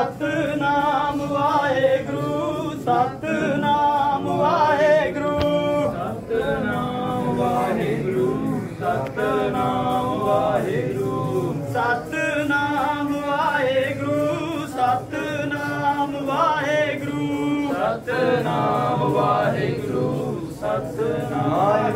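Voices singing together: Sikh devotional kirtan, sung without a break.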